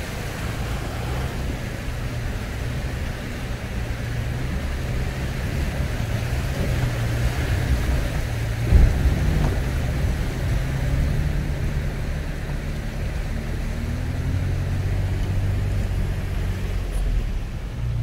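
Off-road 4x4 truck's engine running steadily at crawling speed, its pitch rising a little late on, with a single thump about nine seconds in.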